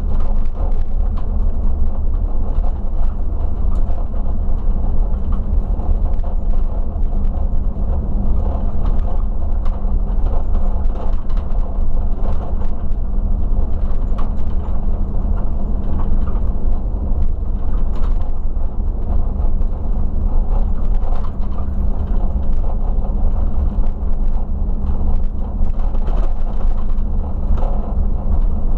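Regional coach driving along, heard from the driver's seat: a steady low rumble of engine and road noise with an even engine hum and light scattered clicks and rattles.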